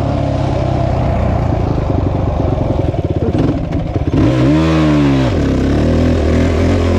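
Small off-road engine running steadily at idle with an even pulse, given one quick rev that climbs and drops back about four and a half seconds in.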